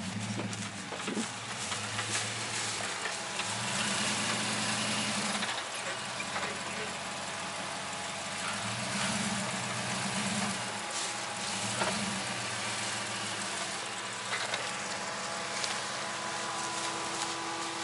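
Dodge Ram 1500 pickup's engine running at low revs while crawling over bumpy ground, its pitch rising and falling several times as the throttle is worked, with a few brief knocks.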